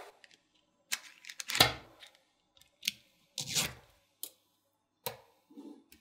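Neodymium magnetic balls clicking and snapping together as blocks of them are lifted, set down and joined: a series of sharp clicks and short rattles at uneven intervals, the loudest about one and a half seconds in.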